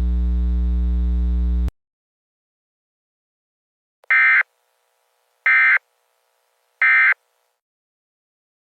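A low, buzzing drone cuts off abruptly about two seconds in. After a silence come three short, identical bursts of warbling data tones a little over a second apart: the EAS SAME end-of-message (NNNN) bursts that close an emergency alert broadcast.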